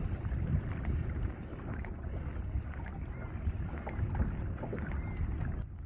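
Small waves lapping and splashing against a fishing kayak's hull as it moves across choppy river water, with wind buffeting the microphone as a low rumble.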